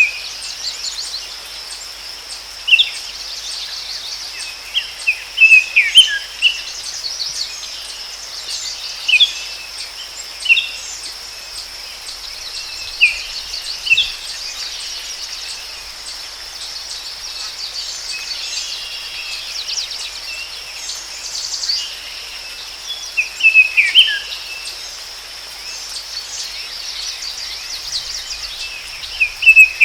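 Forest ambience: songbirds give short chirping calls every few seconds over a steady high-pitched drone of insects.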